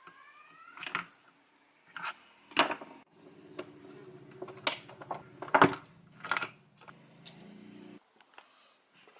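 Small metal parts and tools being handled and set down on a hard surface: a series of sharp clinks and clacks, one ringing briefly. A low steady hum runs underneath from about three to eight seconds in.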